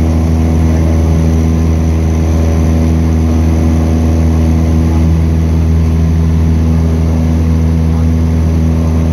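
Light aircraft's piston engine and propeller running at steady climb power just after take-off, a constant low drone heard from inside the cabin.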